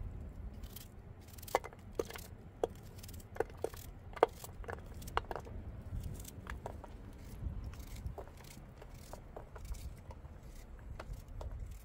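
Scattered light clinks and taps of hard objects being handled, most of them between about one and a half and five seconds in, over a low steady rumble.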